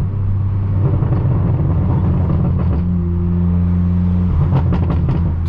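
Straight-piped BMW M4 F82 twin-turbo inline-six droning at steady low revs while driving, with small shifts in pitch along the way.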